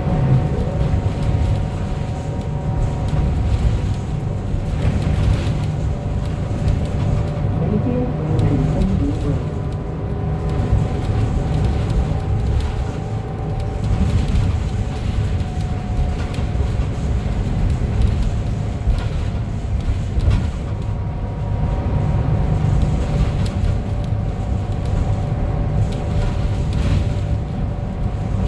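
Ride aboard a 2025 Gillig BRT 40-foot bus powered by a compressed-natural-gas engine, heard in motion: a steady low engine and road rumble under a whine of a few tones that drift slightly in pitch.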